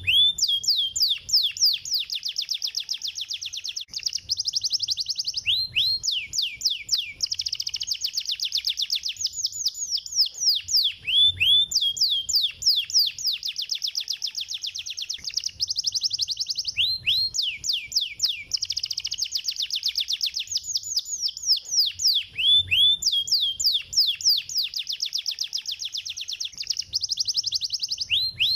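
Domestic canary singing a long run of rapid trills of quick downward-sweeping high notes, with a similar phrase recurring about every five to six seconds.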